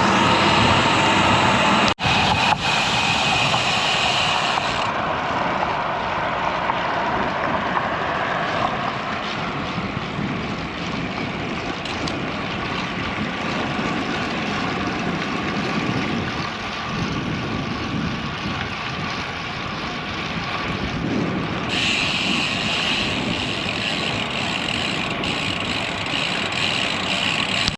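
Steady wind rush on the microphone and tyre and road noise from a road bike being ridden. The sound turns duller about five seconds in and brightens again near the end.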